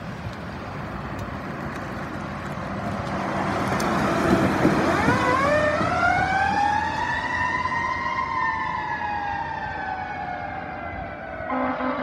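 Fire engine approaching and passing close on the road, its engine and tyre noise growing louder, then its siren rising in pitch about five seconds in and slowly falling as the truck moves off. A short, loud air horn blast sounds near the end.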